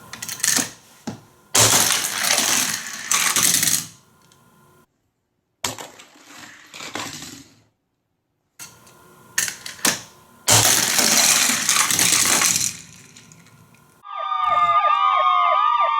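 Plastic toy playset clattering and rattling in several bursts of a second or two, with quiet gaps between. About two seconds before the end a loud siren-like wail with sweeping pitch starts up and keeps going.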